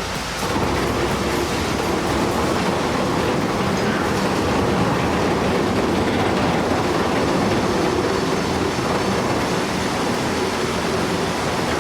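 Heavy machinery running steadily, a dense rumbling and rattling noise that gets a little louder about half a second in.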